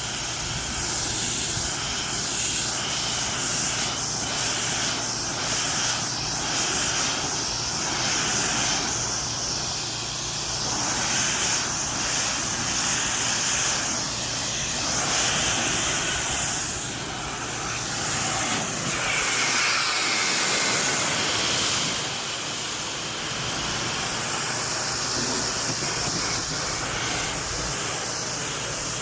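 High-pressure water spray from a pressure washer wand hissing steadily against concrete and screens, its level rising and falling a little as the jet is moved over different surfaces.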